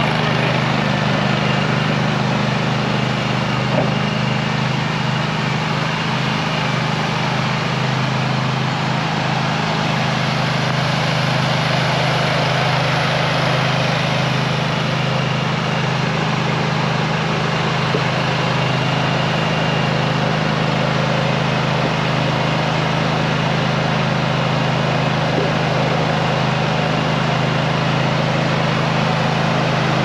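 Engine of a Toro stand-on machine running steadily as it drives slowly forward, an even drone with no change in speed.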